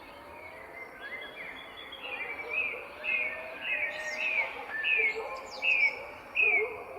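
Songbirds singing, one of them repeating a short falling whistled note about twice a second and growing louder in the second half, with fainter calls from other birds underneath.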